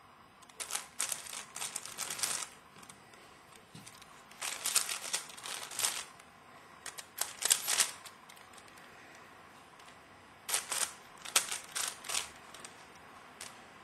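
Plastic layers of a Crazy 3x3 Earth puzzle cube clicking as they are turned, in four bursts of rapid turns with pauses of one to two seconds between, and one last single click near the end.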